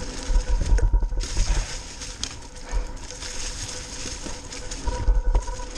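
Mountain bike tyres rolling over a trail thick with dry fallen leaves: a steady crackling rustle with small ticks and rattles. Wind buffets the microphone in two low gusts, about half a second in and again near the end.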